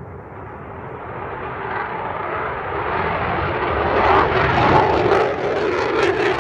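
Military fighter jet's engine roar building steadily as the jet approaches, growing louder and brighter over the seconds.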